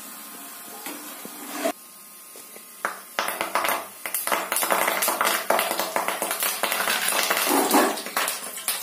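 Curry leaves frying in hot oil in a wok: a dense crackling and spattering that starts about three seconds in and goes on for about five seconds.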